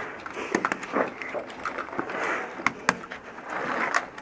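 Scattered sharp clicks and knocks at irregular intervals, with faint muffled voices between them.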